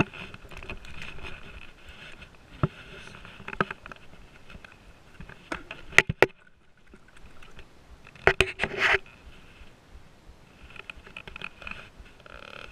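Splashing and pattering water as a hooked snook thrashes at the surface and is landed, with handling noise on the paddleboard: a pair of sharp clicks about halfway through and a short burst of knocks a little later.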